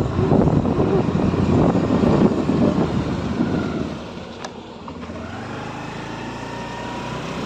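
Wind buffeting and road noise from a vehicle moving along a dusty road. About four seconds in the noise drops away as the vehicle slows, leaving its engine running with a faint tone that slowly rises in pitch.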